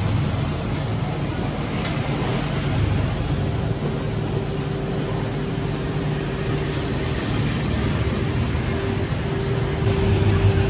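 A steady mechanical hum over a low rumble, with a faint constant tone that grows clearer a few seconds in.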